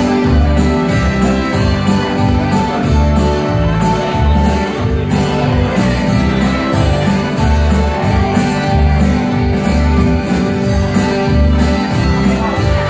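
Upbeat live dance music played through a PA: an instrumental stretch with no singing, a steady beat and strong bass.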